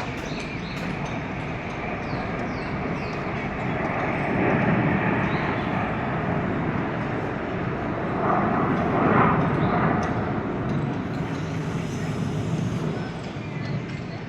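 Jet noise from the Surya Kiran team's BAE Hawk jets flying past, a steady roar that swells twice, loudest about nine seconds in.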